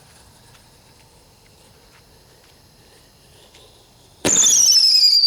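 A firework goes off about four seconds in: a loud, high whistle that falls slightly in pitch for about a second, then a sharp bang at the very end.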